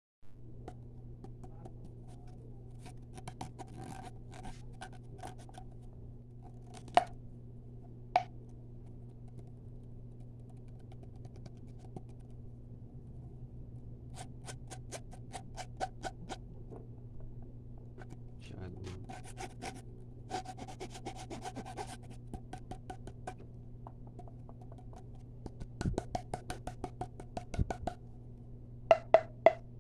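Fast tapping and scratching on a hard surface, coming in bursts of rapid clicks a few seconds long, with two single louder knocks about seven and eight seconds in. A steady low hum sits underneath.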